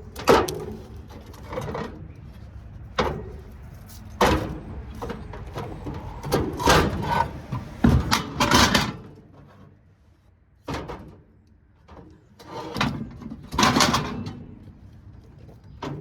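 Metal scrap from light fixtures being handled: irregular clanks, knocks and rattling scrapes as heavy pieces are moved and set down, with a short lull about two-thirds of the way through.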